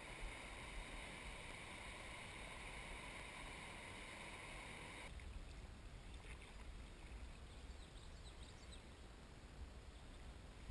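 Steady, faint rush of clear water pouring over rocks in a spring run. About five seconds in it cuts to the quieter, irregular lapping and trickle of water around a kayak gliding on a calm stretch of river.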